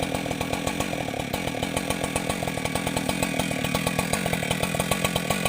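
Husqvarna 585 two-stroke chainsaw running steadily, with a rapid, even pulsing.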